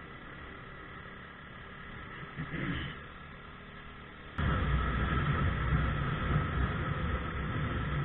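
Riding noise from a Yuki Gusto 50cc scooter: steady road and engine sound, with a brief louder sound near three seconds in. At about four and a half seconds it jumps suddenly to a much louder low wind rumble over the running engine.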